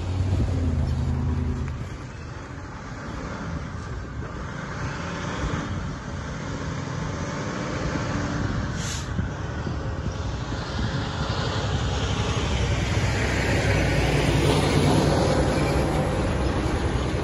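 Road traffic crossing the tracks: a car passes close at the start, a short knock comes about nine seconds in, then a semi tractor-trailer with a dump trailer approaches and grows loud near the end, its diesel engine and tyres running over the crossing.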